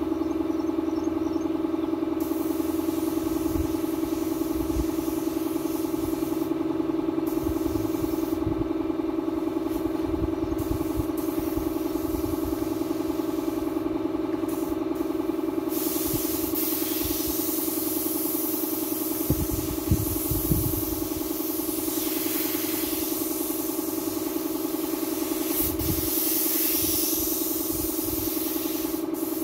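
Air compressor running with a steady hum. About halfway in, a paint spray gun starts hissing in long, uneven spurts, with a couple of knocks soon after.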